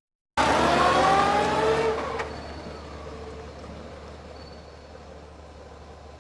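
A motor vehicle accelerating, its engine pitch rising about half a second in, then fading after about two seconds into a steady low hum.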